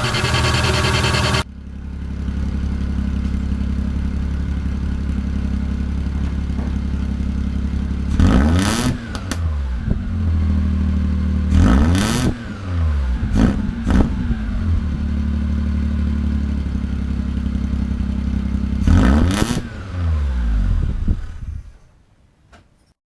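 2004 Maruti's exhaust, with no muffler, only a small resonator, and no air filter, idling with a low steady drone and blipped four times into short revs that rise and fall back. The first second or so is louder and higher, and the sound dies away near the end.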